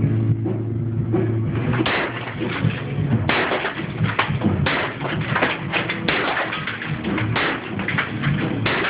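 Demolition of an interior wall: a steady low hum for the first two seconds or so, then a dense run of irregular knocks and crunching strokes as wall material is broken.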